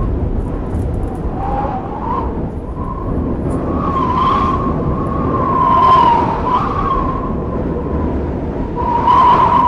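Blizzard wind blowing hard, a steady rush with a wavering, whistling howl that rises and falls in pitch. Gusts swell about four, six and nine seconds in.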